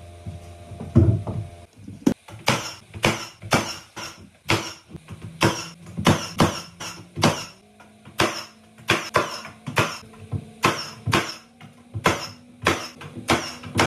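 Nail gun firing a rapid string of shots, about two to three a second, fastening window casing trim to the wall.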